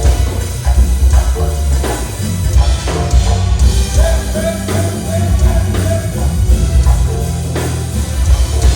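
Music with a heavy bass and drum beat, and a voice singing over it from about four seconds in.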